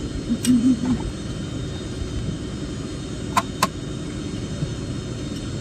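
Steady low rumble of an airliner heard inside the passenger cabin, with a few sharp clicks: one about half a second in and two close together past the middle.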